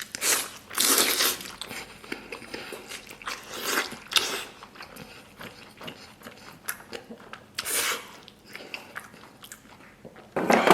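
Close-miked biting and chewing of soy-braised beef ribs, meat being gnawed off the bone in loud bursts every few seconds, the loudest near the end.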